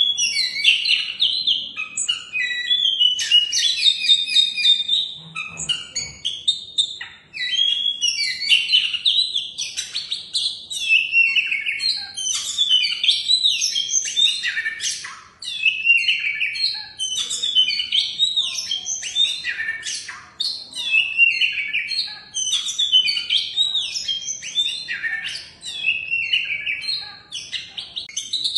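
Oriental magpie-robin (kacer) singing a long, fast, varied song of whistles and chirps, broken by a couple of short pauses.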